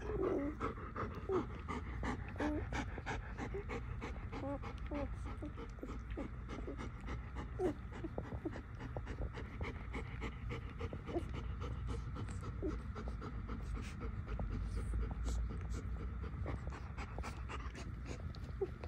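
German Shepherd mother dog panting steadily over her nursing newborn puppies. The puppies give small squeaks, most in the first few seconds, and there are many soft clicks throughout.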